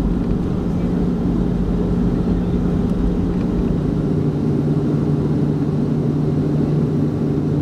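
Cabin noise of a Boeing 737-300's CFM56-3 turbofan engines at taxi power: a steady hum with a droning tone, heard from a window seat beside the engine. About halfway through the deepest rumble eases and the drone settles slightly lower.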